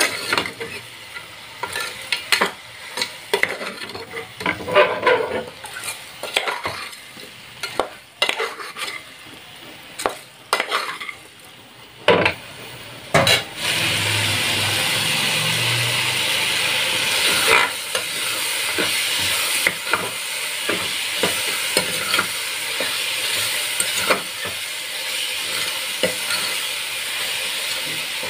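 Steel spoon scraping and knocking against an aluminium pressure cooker while stirring vegetables frying in oil. About halfway through, a steady loud sizzle sets in under the occasional clicks of the spoon.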